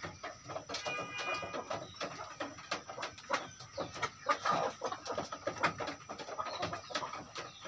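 Native village chickens (ayam kampung) clucking softly while pecking at grain on a dirt floor, with many quick pecking taps and one brief higher call about a second in.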